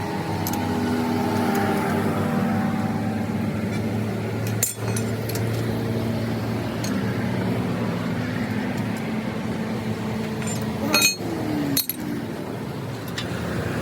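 A steady motor drone with a slightly wavering pitch, broken by sharp metal clinks and knocks: one about five seconds in and two more near the end.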